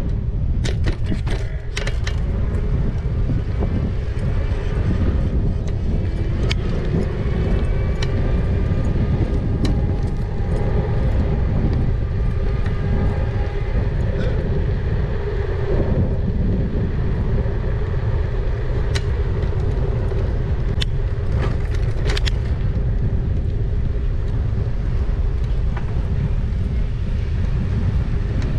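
Riding noise from an e-bike on a tarmac road: wind rumbling on the microphone and tyre noise, over a steady low hum from the motor, with short clicks and rattles scattered through it.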